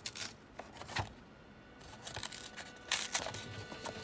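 Paper card sheet being peeled open by hand: a few small clicks and crinkles, then dry rustling and scraping of stiff paper from about two seconds in, as the glued folds are pulled apart to free the card inside.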